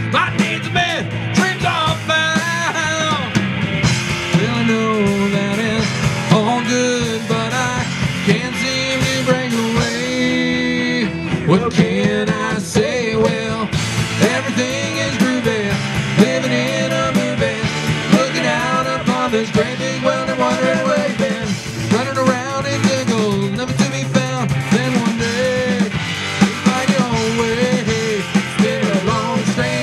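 Live rock band playing loud and steady: two electric guitars, a three-string bass guitar and a drum kit.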